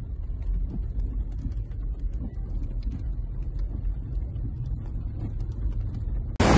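Low steady rumble of a car heard from inside the cabin, with faint scattered ticks. Near the end a much louder rushing noise cuts in abruptly.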